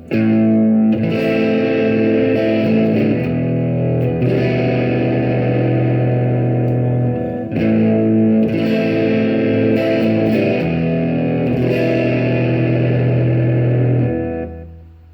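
Xavier PRO830 Tele-style electric guitar with a GFS humbucker, played through a Spark modelling amp. Strummed chords ring and sustain, changing every few seconds, and the last chord fades away near the end.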